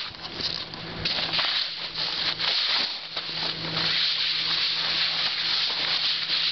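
Broom sweeping across a tent floor: a run of scratchy brushing strokes, one after another.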